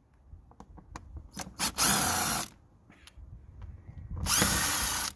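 Cordless drill-driver undoing the screws of an air filter housing lid: two short runs of the motor, about two seconds in and again near the end, with light clicks and taps between.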